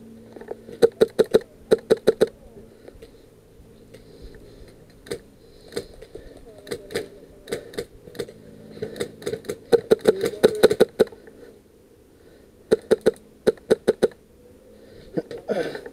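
Airsoft electric rifle, a VFC SCAR-L, firing strings of quick single shots: sharp snapping clicks a few tenths of a second apart, in several bursts, as the shooter test-fires to dial in the hop-up.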